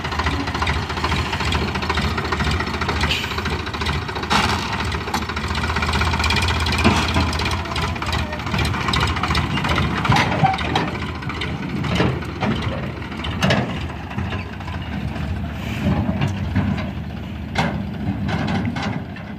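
Sonalika DI 750 tractor's diesel engine running as it drives with a tipping trolley in tow, its bed still raised, with frequent sharp knocks and rattles over the drone. The sound fades near the end as the tractor moves away.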